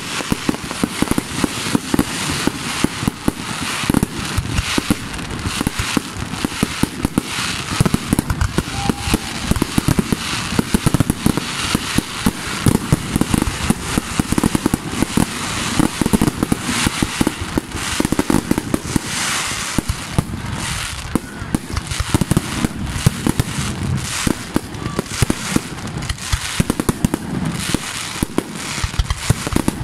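Fireworks display going off in a dense, rapid barrage: shells launching and bursting several times a second with no pause, mixed with crackling.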